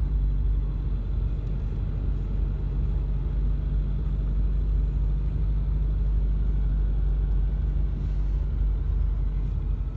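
Car engine and tyre noise heard from inside the cabin while driving along a tarmac lane: a steady low rumble with an even engine hum.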